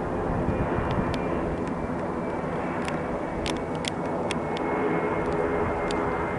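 Airbus A320neo's CFM LEAP-1A turbofans passing overhead on descent: a steady rushing jet noise with a faint high whine, swelling a little near the end.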